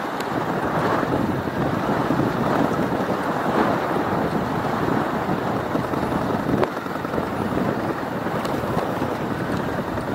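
Steady wind rush on the microphone of a moving bicycle's camera, with a few faint clicks.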